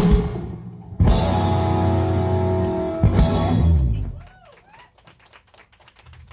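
Live band's ending: a short hit, then a full-band chord with guitars and drums held for about two seconds, a final hit that rings out and fades. Scattered clapping and a few cheers follow.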